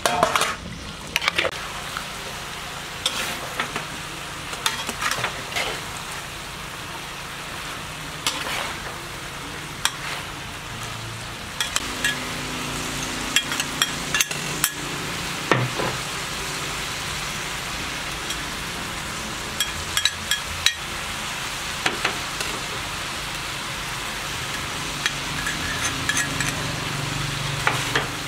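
Chicken and vegetables sizzling in a metal wok as a metal spatula stirs and scrapes them, with frequent sharp clinks of the spatula against the pan.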